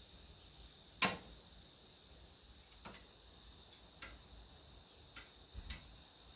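A few separate sharp clicks and knocks over quiet background, the first, about a second in, much the loudest, with four fainter ones spread through the rest.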